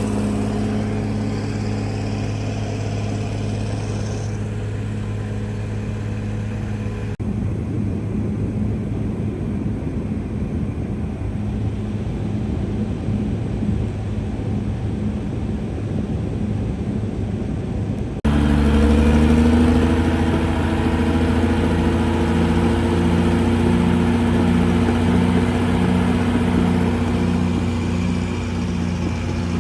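CAT D6R XL bulldozer's diesel engine running steadily under work, with two abrupt changes in the sound about 7 and 18 seconds in; it is louder after the second, with an even pulsing in its tone.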